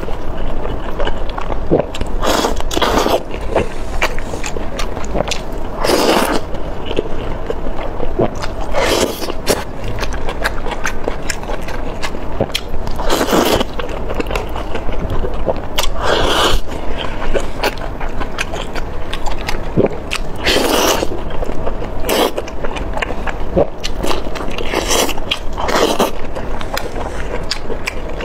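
Close-miked eating of oysters in chopped-chili sauce: wet biting, sucking and chewing, with louder wet surges every couple of seconds as each oyster is bitten and drawn off the skewer.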